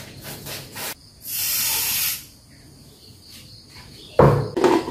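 Kitchen handling sounds: a few light knocks, then a hiss lasting about a second, then a sharp thump near the end, the loudest sound.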